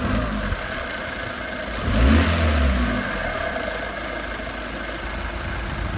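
VW Golf TDI 2.0 common-rail diesel engine idling, revved briefly about two seconds in and then settling back to idle. The owner is chasing a rev-dependent noise from the gearbox side that he suspects is a failing dual-mass flywheel, throwout bearing or clutch.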